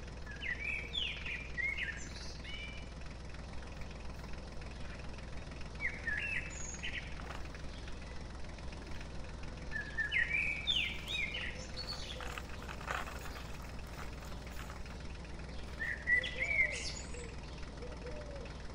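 A songbird singing four short phrases of quick, rising and falling whistled notes, each a few seconds apart, over a steady low background rumble.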